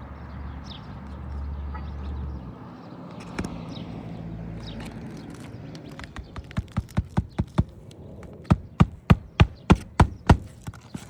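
Hammer driving roofing nails through an asphalt shingle, re-nailing it during a repair test. It strikes in two quick runs of about seven blows each, roughly three a second, starting about six seconds in.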